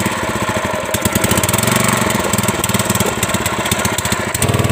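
Small red recoil-start single-cylinder petrol engine on a wooden longtail boat running just after starting, with a steady, rapid firing rhythm. About four and a half seconds in its note turns steadier and a little louder.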